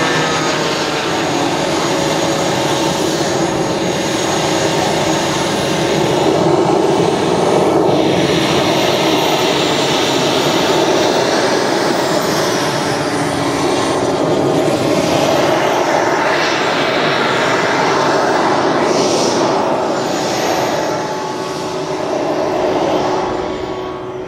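Model MiG-21's small turbine jet engine running as the plane taxis: a loud, steady rush with a thin high whine that rises and falls in pitch, growing quieter near the end as the plane moves away down the runway.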